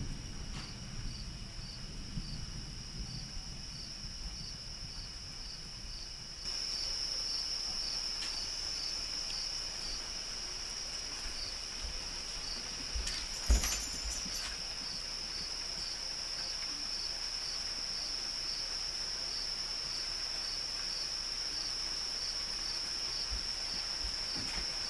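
Night insects chirring: a steady high-pitched drone with a regular pulse about one and a half times a second, stepping up in loudness about six seconds in. A single brief knock about thirteen seconds in.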